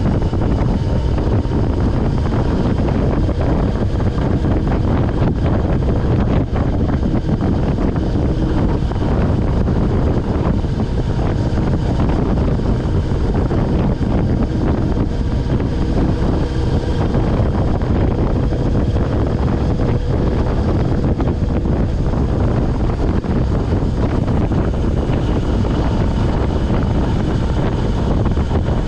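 Steady, loud wind rush over a helmet-mounted camera's microphone while riding a Suzuki GSX1100S Katana motorcycle, with the bike's engine running underneath at a steady pace.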